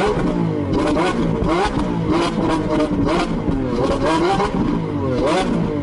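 Lamborghini Aventador's V12 revved hard while standing still, the pitch rising in repeated blips about once a second. Sharp cracks from the exhaust come between the revs.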